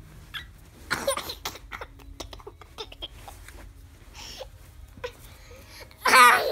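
Young child laughing on a bed: quiet breathy giggles and gasps with scattered rustles, then a loud, high-pitched laugh near the end.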